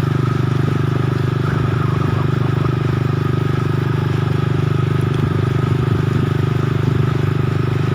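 A vehicle's engine running at a steady speed as it travels along, with no revving or change in pitch.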